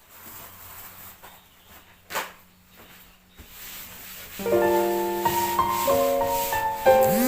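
Background music on a piano-like keyboard starts about four seconds in, with held chords that change every half second or so. Before it there are only faint scattered noises and one short sharp sound about two seconds in.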